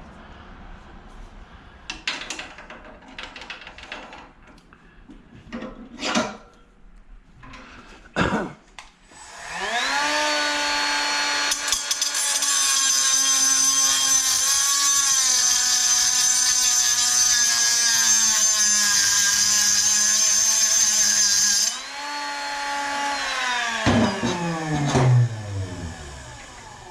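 Handheld electric power tool spinning up with a rising whine, then cutting into scrap metal with a loud harsh hiss for about ten seconds. The metal is left hot. Near the end the motor runs free briefly and winds down with falling pitch. A few knocks and clatters of handled scrap come before it.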